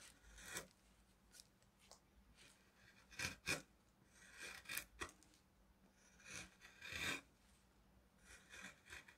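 Carving gouge slicing shavings from the inside of a tulip tree bowl: several short, quiet cutting strokes with pauses between them.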